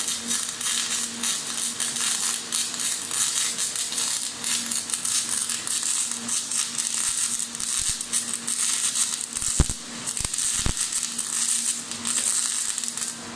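Gas-shielded MIG welding arc from a Power Mig 500 welder, a dense steady crackle and sizzle as the wire feeds into the weld pool, cutting off abruptly at the very end. A steady low hum runs underneath throughout.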